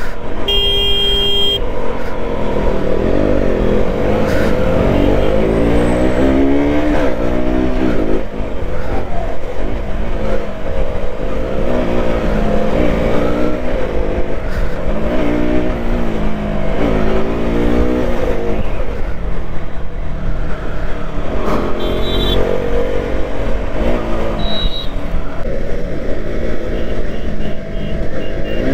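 Sport motorcycle engine at speed, its pitch climbing and dropping again and again as the rider opens the throttle, shifts and eases off, with wind noise over the microphone.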